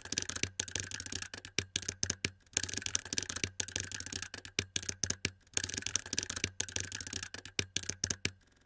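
Rapid, irregular clicks, taps and light rattles of computer hardware being handled and fitted during a PC assembly, over a faint steady hum.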